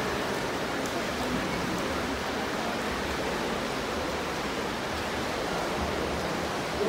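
Steady rushing noise of an indoor swimming pool hall, water-like and even, with swimmers in the water.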